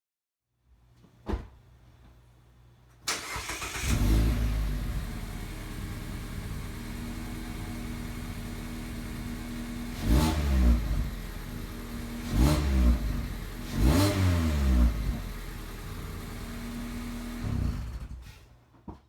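A 2017 Mazda MX-5 RF's four-cylinder engine heard through its exhaust: a faint hum and a click, then the engine cranks and catches about three seconds in, flares up and settles to a steady idle. It is blipped three times, the last a double rev, dropping back to idle each time, and shut off near the end.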